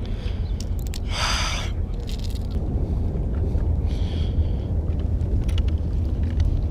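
Steady low wind rumble on the microphone, with a short scraping rustle about a second in and a few small clicks later as a plastic tackle box is handled.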